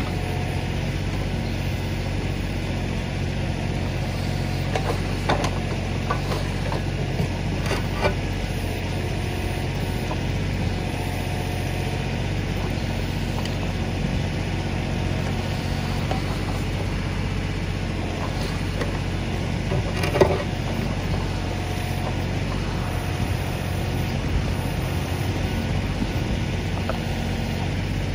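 Kioti DK4510 tractor's diesel engine running steadily at an even speed, with a few sharp knocks of metal work; the loudest knock comes about twenty seconds in.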